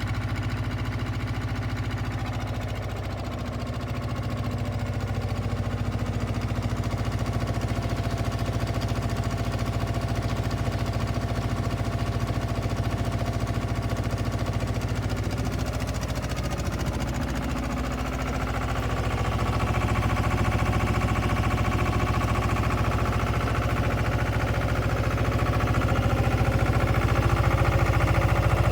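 Diesel engine of a Bitelli BB 611 asphalt paver running steadily, growing somewhat louder about two-thirds of the way through.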